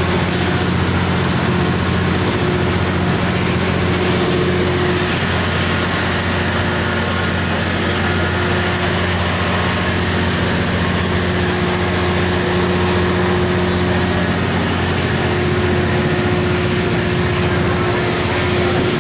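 Steady machinery drone in the engine room of a steam-powered sternwheel riverboat: a constant low hum with a couple of steady higher tones over a hiss of running equipment.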